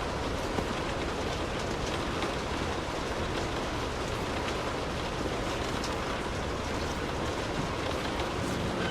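Steady rain falling, with many small drop ticks over a low rumble.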